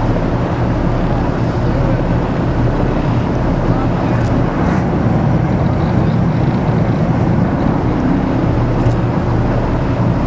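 A boat's engine running steadily: a constant low rumble under an even hiss of wind and water.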